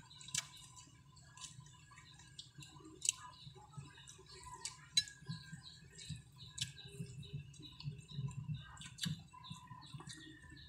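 Mukbang eating sounds: chewing, lip smacks and irregular sharp mouth clicks as two people eat with their hands, over a low hum.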